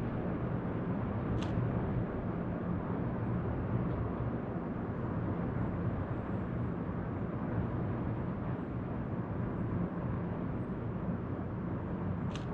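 Steady outdoor ambient noise, low and rumbling, with two brief high-pitched chirps, one about a second in and one near the end.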